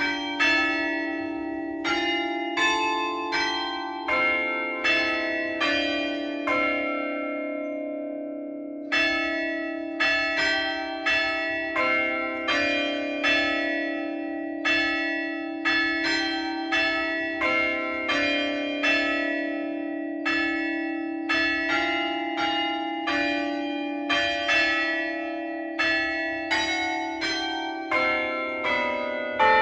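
Church tower bells struck one after another at changing pitches to ring out a tune, about one and a half notes a second, each note ringing on as the next is struck. About seven seconds in, one note rings out alone for a couple of seconds before the tune goes on.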